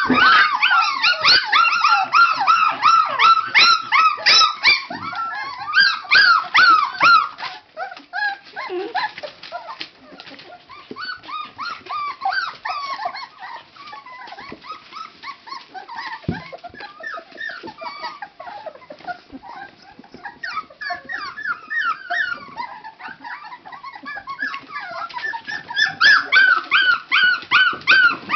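A litter of five-week-old puppies whining, yipping and squealing, many short high cries overlapping. The cries are loud for the first several seconds, drop to a softer scattered chorus, and grow loud again near the end.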